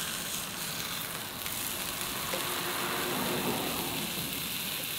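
Salmon fillet sizzling steadily in a frying pan on a camp stove.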